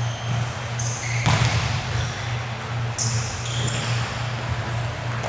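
Basketball being played on an indoor court: a ball bouncing and sneakers squeaking briefly on the floor, over a steady low hum.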